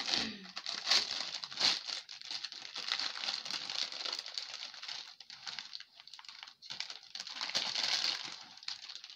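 Plastic packet crinkling and rustling as it is handled and opened, in irregular crackles, loudest in the first two seconds and again near the end.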